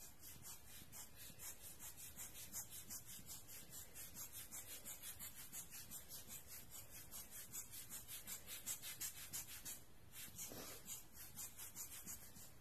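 Giottos Rocket rubber bulb air blower squeezed over and over, a faint run of quick, even hissing puffs of air across wet alcohol ink, with a short pause about ten seconds in.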